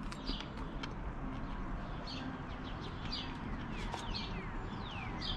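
Small birds chirping: a string of short, high chirps that slide downward in pitch, several a second, over a steady outdoor hiss. A light click at the very start.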